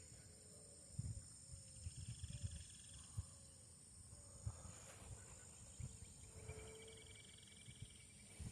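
Faint outdoor insect chorus: a steady high-pitched drone, with a pulsing trill that comes in twice and short low calls, plus a few soft knocks.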